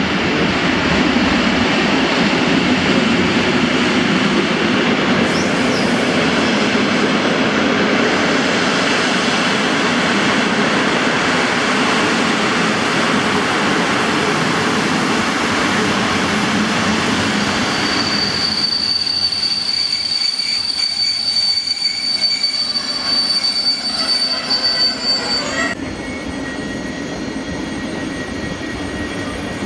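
EU07 electric locomotive and Intercity passenger coaches rolling past at a slow approach speed, then braking to a stop with a steady high squeal that lasts several seconds and cuts off suddenly, leaving the quieter hum of the standing train.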